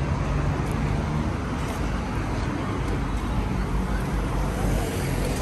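Steady road traffic on a busy street: cars running past with a continuous low rumble.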